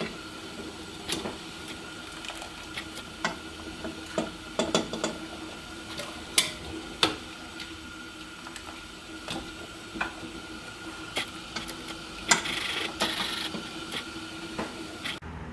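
Metal kitchen tongs clicking and clacking as boiled corn cobs are lifted from a pot onto a plate: scattered sharp clicks, with a closer run of them a few seconds before the end, over a steady faint hum.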